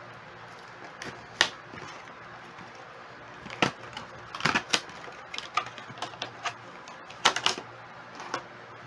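Clear plastic blister packaging being handled and turned over, giving scattered sharp clicks and crackles, some in quick pairs, over a steady faint hiss.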